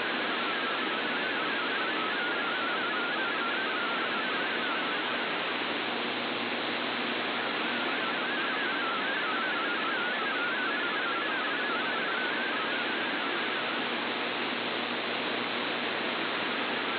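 MFSK32 digital data signal from a shortwave broadcast heard through a receiver in AM mode: a warbling band of rapidly stepping tones around 1.5 kHz, buried in loud, steady static hiss. The signal is barely above the noise, so the decoded text comes through partly garbled.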